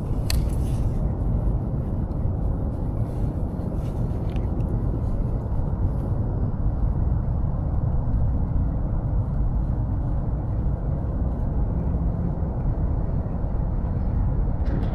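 Wind buffeting the microphone, a steady low rumble, with a couple of faint clicks near the start and about four seconds in.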